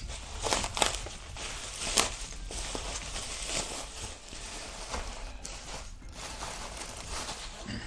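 Bubble wrap crinkling and rustling as hands unwrap it, with irregular crackles and short snaps throughout.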